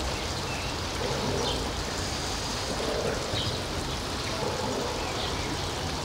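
Steady rushing background noise with a few faint, short high chirps.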